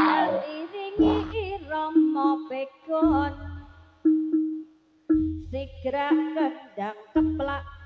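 Live Javanese trance-dance troupe music: a wavering, sliding melody line over a deep beat that lands about every two seconds.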